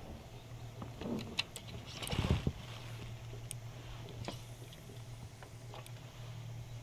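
A spinning rod and reel being cast from an inflatable boat: a dull thump with a swish about two seconds in, then a few light clicks of the reel, over a steady low hum.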